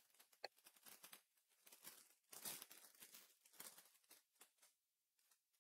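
Very faint rustling and light ticks of Weiss Schwarz trading cards being handled and flipped through, with a sharper tick about half a second in and a slightly louder rustle a couple of seconds later.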